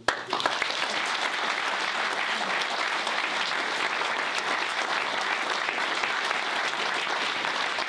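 Audience applauding, starting suddenly and holding at an even level.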